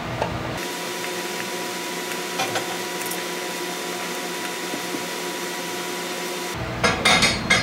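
Steady mechanical hum of a shop machine. Near the end comes a quick cluster of sharp clicks and rattles as screws are taken out of a headlight housing.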